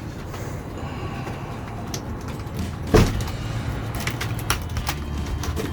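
Rotten wooden paneling being pried and pulled apart by hand, with one loud knock about three seconds in and a run of smaller knocks and clicks near the end, over a low steady rumble.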